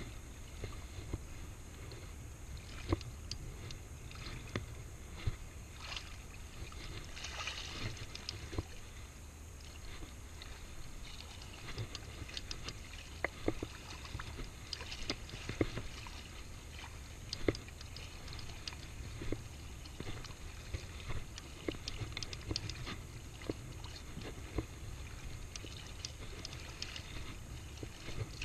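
Shallow sea water sloshing and lapping around a wading angler under a steady low rumble, with many scattered light clicks and ticks as a spinning reel is cranked against a hooked fish.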